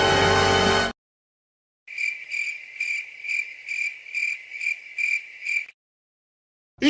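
Cricket-chirp sound effect, the stock 'awkward silence' crickets: short, even chirps repeating about twice a second. A music clip cuts off about a second in, and a loud sweeping sound begins just before the end.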